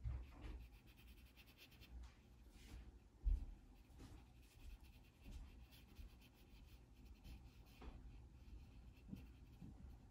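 Faint brushing and scratching of a small watercolour brush stroking over wet paint on thick watercolour paper. There is a single low thump about three seconds in.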